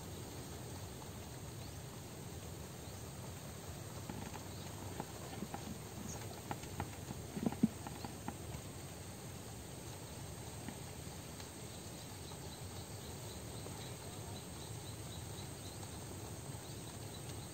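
Low steady outdoor background with a scattering of soft clicks and knocks between about four and eight seconds in, the loudest a little before the middle.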